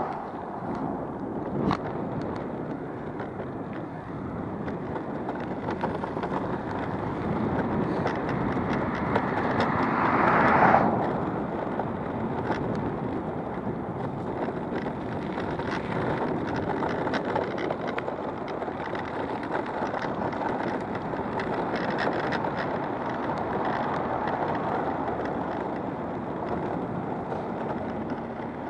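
Electric skateboard rolling over rough asphalt: a steady rush of wheels on the road mixed with wind on the microphone, with scattered clicks and knocks from cracks and bumps. About ten seconds in the rush swells louder, then drops off suddenly.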